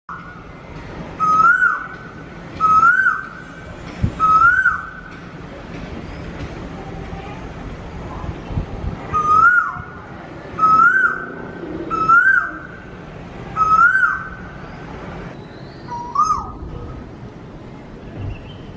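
Peacock calling: a string of short, loud, hooked cries, each rising then dropping sharply, repeated about every second and a half. There are three in a row, four more after a pause, and one lower cry near the end.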